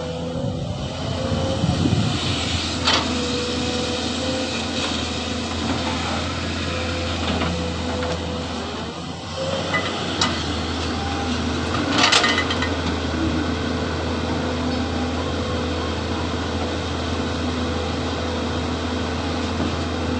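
SANY excavator's diesel engine running steadily under a constant whine, with a few sharp knocks and clatters, the loudest about twelve seconds in.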